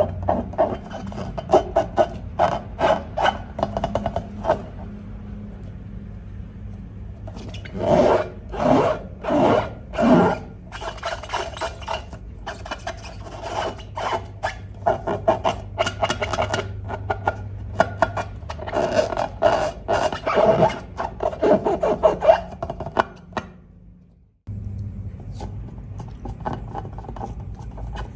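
Repeated short rubbing and scraping strokes, coming in quick runs, over a steady low hum. Near the end the sound fades almost to nothing, then resumes abruptly.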